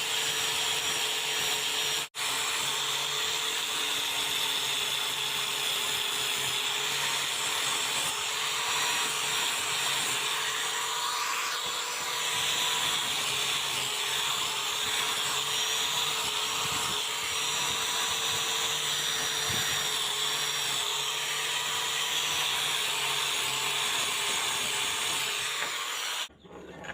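Electric power tool running steadily with a high whine and hiss, typical of grinding or sanding metal in rust removal. It drops out for a split second about two seconds in and cuts off suddenly near the end.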